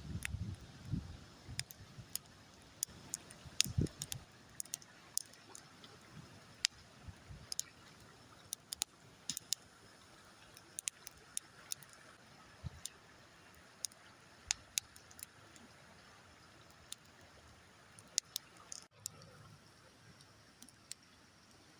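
Campfire crackling, wood popping in sharp, irregular clicks, with a few low thuds in the first few seconds.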